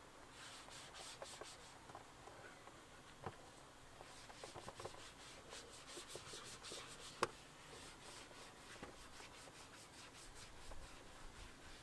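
A small sponge rubbing back and forth over a plastic engine cover in quick, faint wiping strokes. A single sharp tap comes about seven seconds in.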